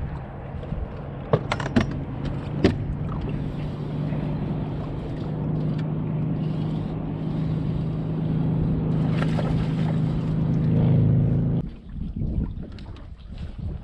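Wind buffeting the microphone on a boat, with a few sharp clicks in the first three seconds. A steady motor hum builds over it, grows louder, and stops abruptly about three quarters of the way through.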